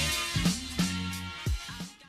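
Intro music with a drum beat and bass, fading out near the end.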